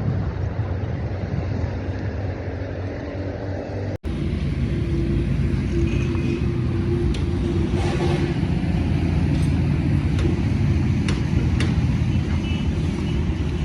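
Motor vehicle engine running with a steady low rumble, broken briefly about four seconds in, with a few sharp clicks near the end.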